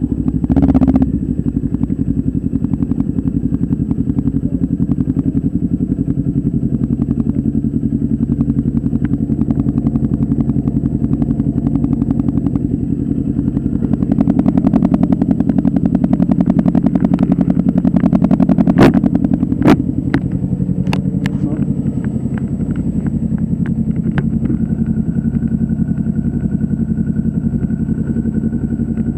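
An engine running steadily with a fast, even pulse, a little louder for a few seconds mid-way, with a few sharp clicks soon after.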